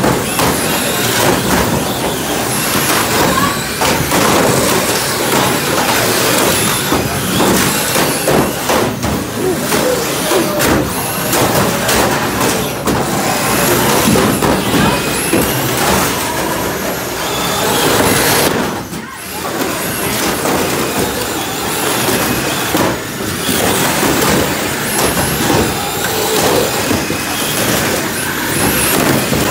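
Radio-controlled demolition derby cars running and crashing: their motors whining and tyres scrubbing on a plywood floor, with repeated knocks as the plastic bodies ram each other and brief high squeals.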